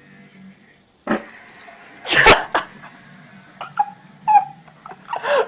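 Sounds of a household pet: a loud, sudden noisy burst about two seconds in, then a few short, high calls.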